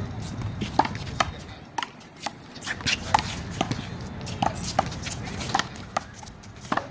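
One-wall handball rally: a small rubber handball smacked by bare or gloved hands and striking the wall and the court in a quick, irregular series of sharp slaps.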